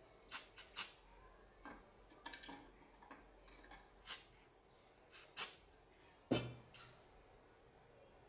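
A few short hissing puffs and clicks from a small aerosol spray can being used on a glued wooden joint, with small wooden parts being handled. A single knock about six seconds in is the loudest sound.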